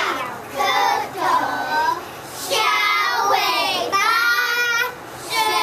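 A group of young children singing together in unison, in short phrases with brief pauses between them and some longer held notes.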